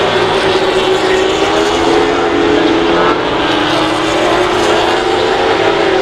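Several MotoGP race bikes' 1000cc four-stroke engines running hard through a corner, their overlapping engine notes drifting and slowly falling in pitch.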